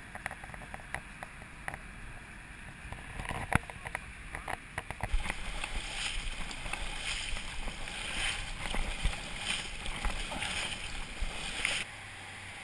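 Sea water surging and splashing over a beached redwood log close to the microphone, in repeated surges about a second apart, starting about five seconds in and cutting off suddenly near the end. Before it there are only scattered light clicks and knocks.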